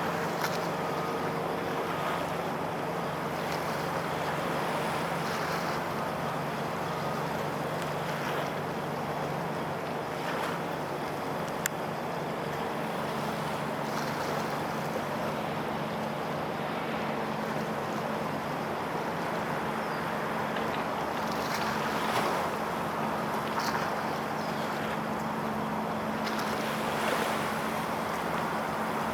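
Steady wind buffeting the microphone over a waterside ambience, with a low, constant engine drone underneath and a few faint clicks.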